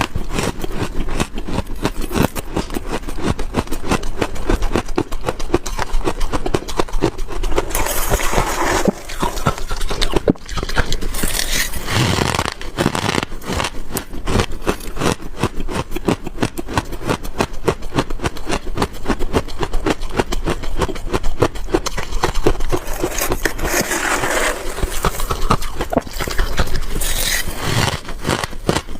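Freezer frost being chewed close to the microphone: dense, rapid, irregular crunching, with a few louder, fuller bites.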